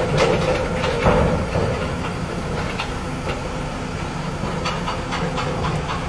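Heavy tipper truck's engine running steadily, with a hiss and scattered metallic clanks and clicks, most of them in the first second and again about five seconds in.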